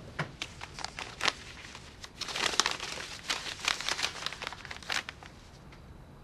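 A folded sheet of paper being handled and unfolded: a few separate crinkles in the first second and a half, then a denser stretch of crinkling for about three seconds.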